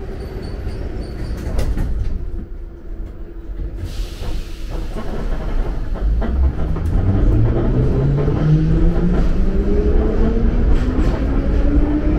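Metro train heard from inside the car: a steady low rumble with a short hiss about four seconds in. From about halfway, the traction motors' whine climbs steadily in pitch as the train picks up speed.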